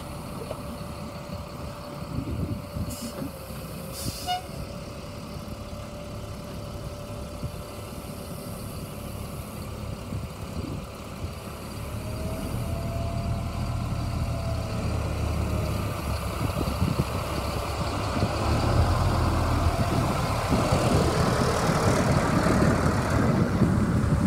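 1999 GMC C7500 grain truck's engine running as the truck drives past, getting louder in the second half as it comes close. A thin steady whine runs through it, and there are two light clicks a few seconds in.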